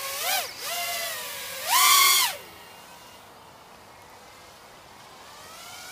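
Electric motors and propellers of a ViFly R220 V2 FPV racing quadcopter whining in flight, the pitch rising and falling with the throttle. About two seconds in comes a short, loud burst of throttle, after which the whine fades to faint and grows again near the end.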